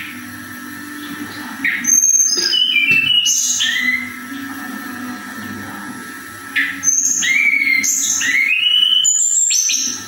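Caged tledekan (blue flycatcher) singing two phrases of clear whistled notes that leap between high and low pitches, the first starting about two seconds in and the second about seven seconds in.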